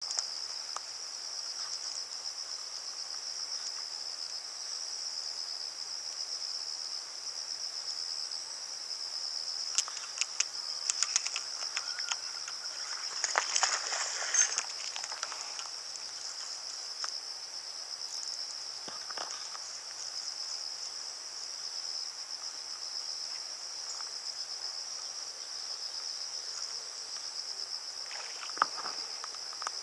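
A steady, high-pitched insect chorus trilling without a break. Around the middle comes a short burst of splashing and clicks while a hooked bass fights on the line.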